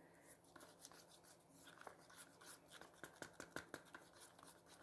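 Faint scraping and light ticking of a wooden stirring stick against the inside of a plastic cup as it mixes red acrylic paint with liquid glue.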